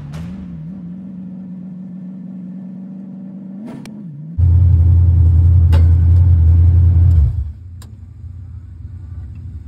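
Dirt-track race car engine idling steadily, with a quick blip a little before the middle. A much louder, deep low rumble then cuts in for about three seconds and stops suddenly, leaving the idle.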